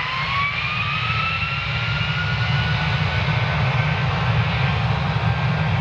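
Boeing 757-200's twin jet engines spooling up to takeoff power: a whine rising in pitch over the first two seconds and then holding steady, over a deep rumble that grows louder.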